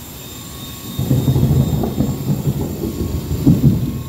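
Small electric RC helicopter (WLtoys V913) in flight, a faint steady motor whine from it under a louder low rumble that picks up about a second in.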